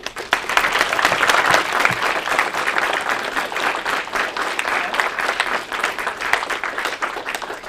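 Audience applauding: many hands clapping together, loudest in the first two seconds and easing off a little toward the end.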